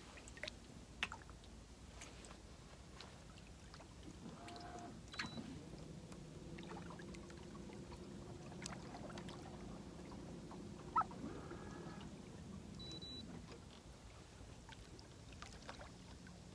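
Faint clicks and knocks of handling aboard a fishing boat, with one sharper knock about eleven seconds in. A low, steady motor hum runs from about four seconds in until about fourteen seconds in.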